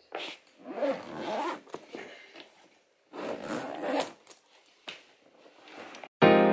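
Zip of a soft-sided fabric suitcase being pulled along in two long strokes, with a few small clicks and knocks between. Piano music comes in near the end.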